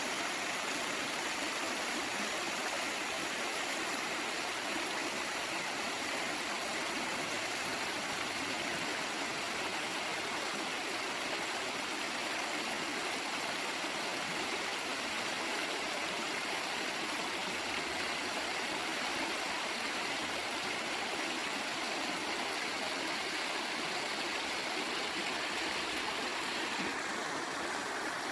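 Waterfall: water pouring and splashing in a steady, continuous rush.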